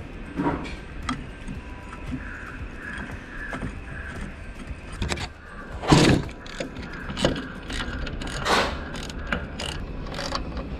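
Metal knocks and clicks as a lathe's cross slide is fitted back onto the carriage. The loudest knock comes about six seconds in, and a run of quick clicks follows near the end.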